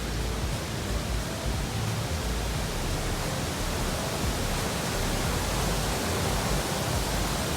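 Large waterfall rushing in a steady, even roar.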